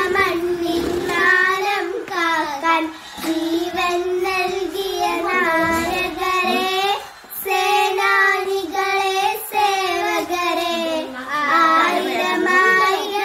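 Two young girls singing a song together without accompaniment, in sustained phrases with short breaks between them.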